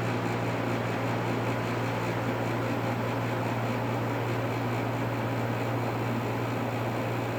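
Carrier air conditioner running just after start-up, with a steady low compressor hum under the fan's airflow while it is still building head pressure.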